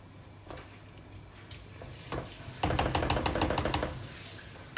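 Curry simmering in a pot on the hob, with a quick run of bubbling pops starting about two and a half seconds in and fading out near the end.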